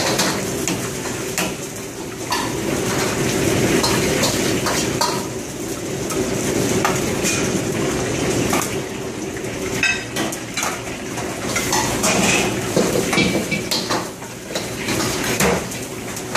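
Metal wok ladles and spatulas clanking and scraping against steel woks, in frequent irregular strikes, over the steady rushing noise of the high-flame wok burners and extractor hood.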